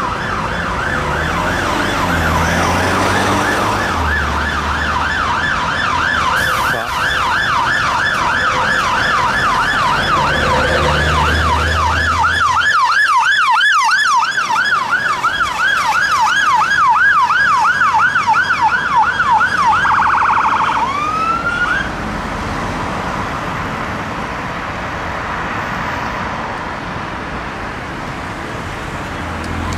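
Fire engine's electronic siren on a fast yelp, rising and falling several times a second. Near the end of the siren it switches briefly to a quicker warble and one rising sweep, then stops, leaving quieter road noise, and a rising sweep starts again at the very end.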